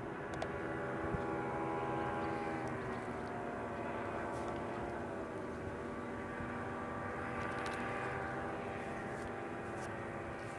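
Engines and propellers of several paramotor trikes (powered paragliders) droning overhead, their overlapping tones sliding slowly down and up in pitch as they pass.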